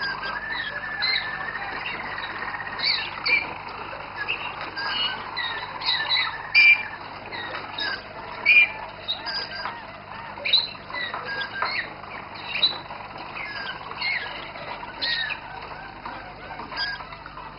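Roller canaries singing, several birds at once: a held rolling note in the first few seconds, then many short chirps and song phrases scattered throughout, a few of them sharper and louder.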